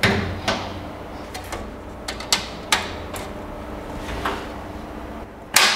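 Knocks and clicks of a glass front door being fitted onto a wall-mounted metal network cabinet. There is a loud knock at the start, a scatter of smaller clicks through the middle, and another loud knock near the end.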